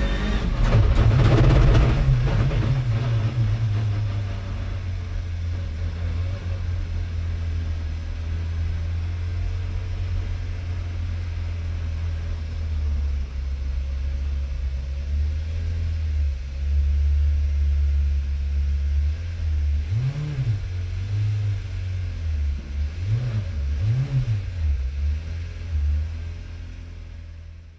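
Citroën C3 WRC rally car's 1.6-litre turbocharged four-cylinder engine heard from inside the cabin: it pulls hard for the first couple of seconds, then runs steadily at low revs. Near the end it is blipped three times, briefly, before the sound fades out.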